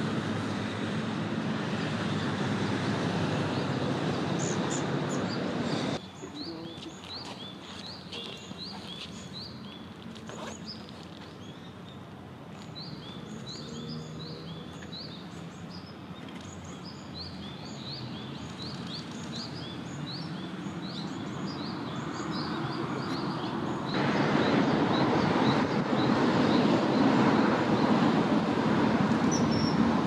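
Short, high bird chirps repeating many times over a steady outdoor background noise. The noise drops at about six seconds, where the chirps come through clearly, and comes back louder at about twenty-four seconds, covering them.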